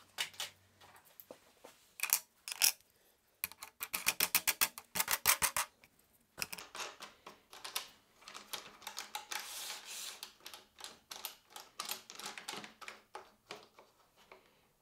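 Small plastic and metal parts clicking and rattling as a featherboard is set into a router table's mitre track and locked down with washers and star knobs. A fast, even run of clicks comes about four seconds in, then lighter clicking and scraping.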